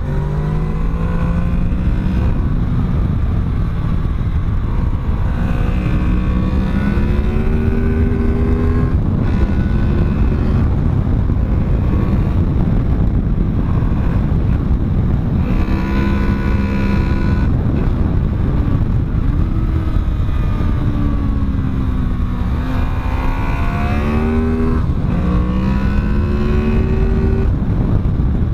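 Honda VFR800's 800 cc 90° V4 engine pulling hard under heavy throttle. Its pitch climbs and drops back at each gear change, several times over. A steady low rush of wind runs underneath.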